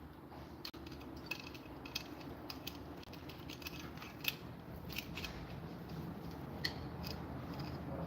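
Scattered light clicks and clinks of parts and hand tools being handled during timing chain work, over a steady low hum.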